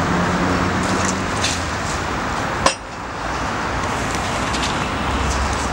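Steady street background noise with a single sharp click about two and a half seconds in.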